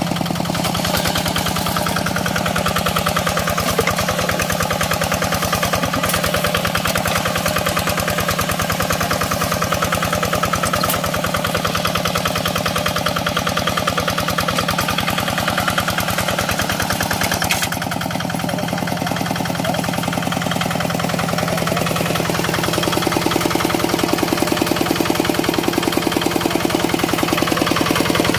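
Single-cylinder diesel engine of a Quick Impala two-wheel hand tractor running steadily with a rapid, even firing beat; the engine note shifts about two-thirds of the way through and grows a little louder near the end.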